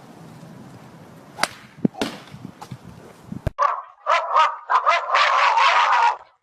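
A dog barking in quick, choppy bursts, starting about three and a half seconds in after a quieter stretch with a few sharp clicks.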